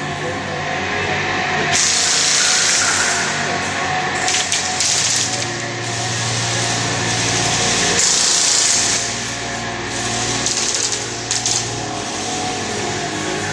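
Airsoft guns firing in rapid full-auto bursts, each lasting a second or two, with a few short sharp clicks near the end.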